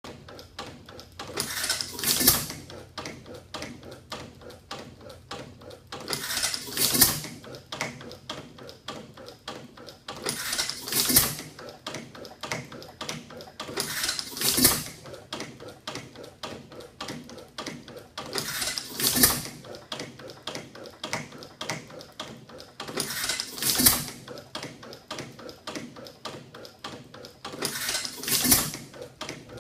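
Circa-1910 6 HP Kansas City Lightning opposed-piston engine (two pistons in one cylinder) running. It fires once every four to five seconds with a loud bang and coasts between, clicking rapidly and steadily, the firing pattern of a hit-and-miss governed engine.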